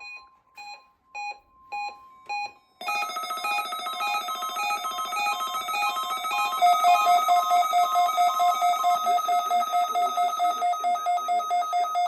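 NOAA weather radio alert alarm during a required weekly test: five short electronic beeps about every 0.6 s over a faint steady tone, then from about three seconds in a loud multi-tone electronic alarm that settles into about four pulses a second.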